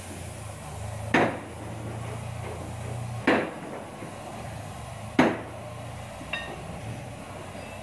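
Three loud, sharp knocks, about two seconds apart, over a steady low hum.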